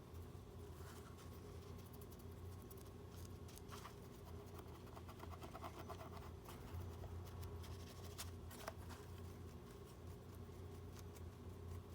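Faint scratching and light clicks of small hand tools working on a smartwatch, over a steady low electrical hum.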